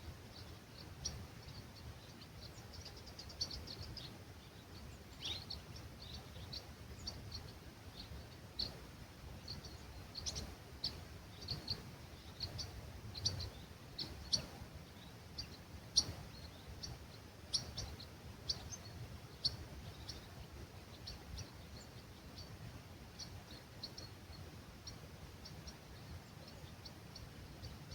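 Small birds singing and chirping at dawn in an olive grove: many short high calls scattered throughout, over a steady low rumble of breeze.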